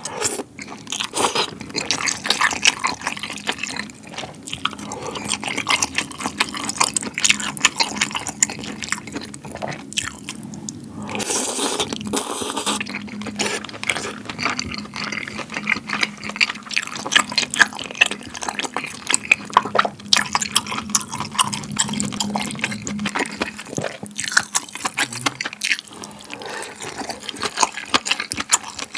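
Close-miked eating sounds: noodles slurped from tomato malatang broth and wet chewing, full of small clicks and smacks. A longer, louder slurp comes about eleven seconds in.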